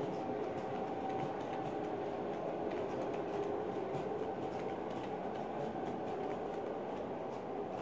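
LGB large-scale model train of tank cars running along the track: a steady rolling noise and hum, with light clicks from the wheels on the rails.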